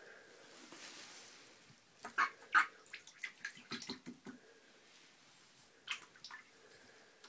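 Small splashes and drips of shallow bathtub water as a duckling paddles and walks through it. There is a quick run of splashes about two seconds in and a few more around six seconds.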